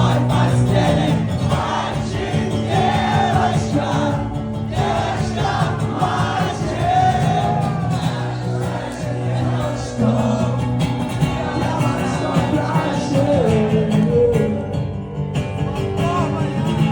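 Live song performance: voices singing over strummed acoustic guitar, with a crowd's voices mixed in.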